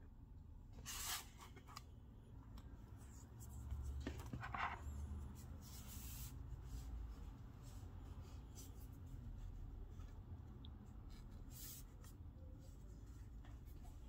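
Hands handling and pressing a tablet's freshly glued back cover, making faint rubbing with a few short scrapes and light clicks.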